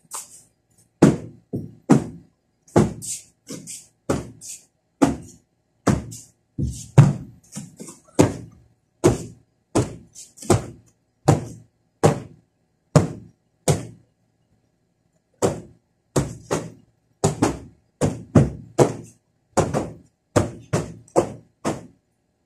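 Thick fabric-covered floor cushions being thumped and slapped: dull thuds about once a second, with a short break about two-thirds of the way through.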